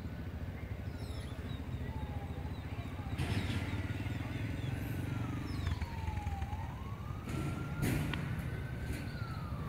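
Small motorcycle engine running under a learner rider, its whine slowly rising and falling as the throttle is opened and eased off, over a steady low hum.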